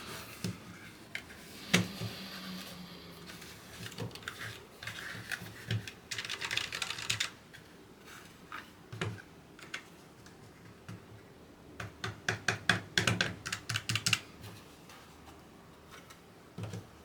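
Typing on a hand-built portable split keyboard: scattered key clicks, with a quick run of keystrokes about six seconds in and a longer, faster flurry from about twelve to fourteen seconds in.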